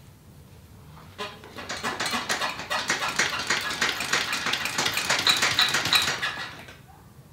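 Homemade leaf-spring front suspension on a motorcycle rattling and clattering as the front end is pushed down and bounced from the handlebars, with a few short high squeaks near the end. The noise builds about a second in and dies away shortly before the end.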